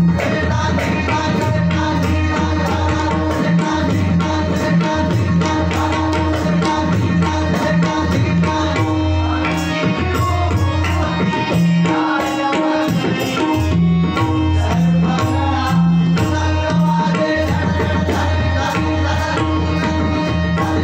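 Tabla playing a dense, lively rhythm over steady held harmonium-like notes in a Marathi bhajan 'notation' instrumental passage.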